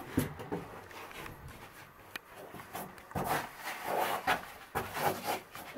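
Scuffing and scraping of shoes and clothing against rock as a caver squeezes through a tight crevice, with scattered knocks and rustles that grow busier about halfway through.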